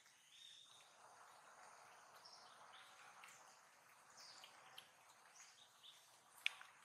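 Near silence: faint outdoor ambience with a few short, faint high chirps and a single sharp click near the end.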